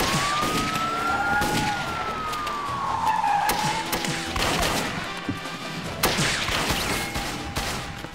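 Car tyres screeching in one long squeal that rises and then falls in pitch over about four seconds as a car skids through a turn. A few sharp bangs of gunfire follow, the loudest about six seconds in.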